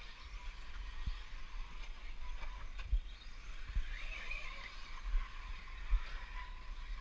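Thin whine and tyre hiss of 1/10-scale 4WD radio-controlled buggies racing on a dirt track, with a brief rising-and-falling whine about four seconds in. A few short low thumps come through underneath.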